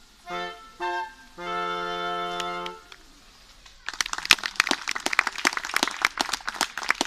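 A small classical chamber ensemble plays two short chords and then a held final chord of about a second and a half. After a short pause, about four seconds in, the audience breaks into applause.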